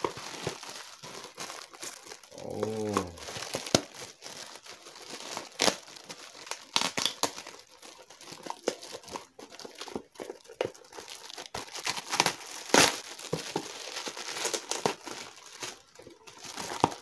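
Shiny metallic gift wrap crinkling and tearing as it is pulled off a cardboard box, in irregular crackles. A short vocal sound comes about two seconds in.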